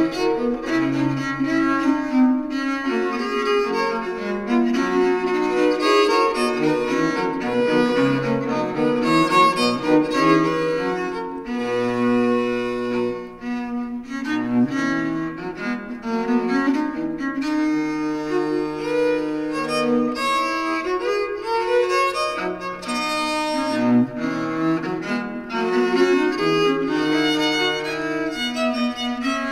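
A consort of viols playing a four-part Renaissance ricercare, the bowed lines weaving together in counterpoint. A short dip in loudness a little before the middle marks the start of a new section.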